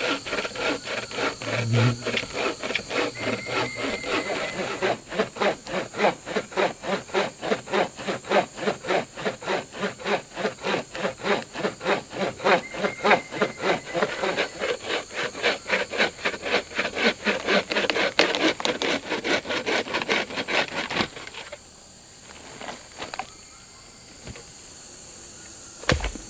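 Hand saw cutting through wood in quick, even back-and-forth strokes, about three a second, stopping about 21 seconds in, with insects chirring steadily behind.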